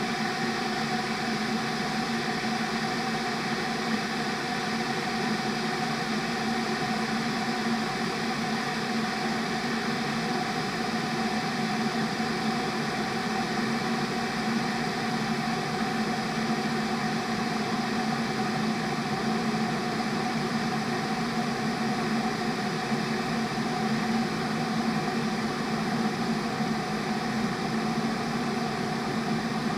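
Kettle boiling: a steady rushing hiss with a low, even hum underneath, unchanging throughout.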